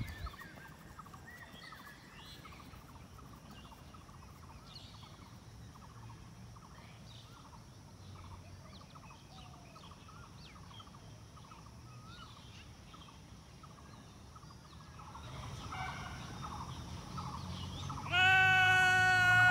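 Many short bird chirps, faint and scattered. Near the end a much louder held note with a flat, steady pitch starts suddenly and lasts about a second and a half.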